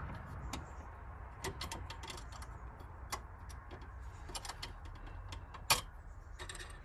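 Scattered light clicks and taps from a universal battery clamp's hooks, bungs and nuts being fitted over a car battery, with one sharper click near the end.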